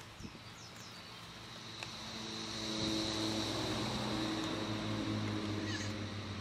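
A steady engine drone: faint at first, it grows louder about two seconds in and then holds, a low hum with a higher whine above it.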